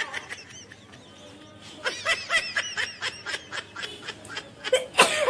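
A person giggling in quick, short bursts, with a sudden loud burst of breath near the end.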